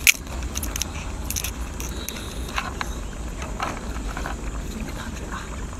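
Cooked crab being broken apart by hand: a sharp crack of shell just after the start, then scattered crunching and crackling as the shell and legs are pulled apart.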